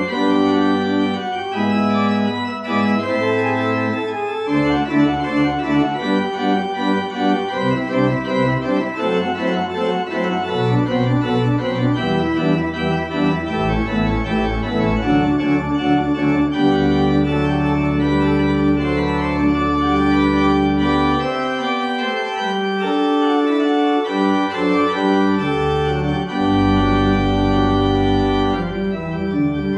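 Organ music played as the closing voluntary after the dismissal: long sustained chords over deep bass notes, with a passage of quicker, shorter notes in the middle.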